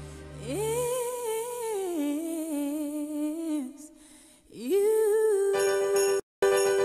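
Music with a hummed or sung melody: long held, wavering notes that slide up into pitch, with a brief drop-out near the end.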